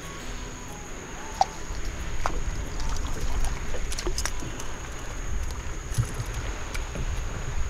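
Water lapping against a small boat's hull, with a low steady rumble of wind on the microphone and a few light clicks and knocks scattered through. A faint steady high tone sits underneath.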